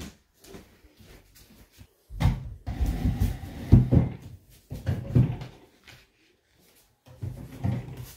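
Bumping and rubbing handling noise in several irregular bursts, with a few knocks, starting about two seconds in.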